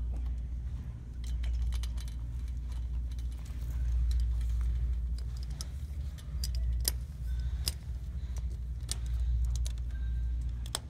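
Keys jangling on a belt key ring as a kneeling worker moves, with scattered sharp clicks from the screen fabric's snap fasteners being popped onto the metal fast-fold frame, over a steady low rumble.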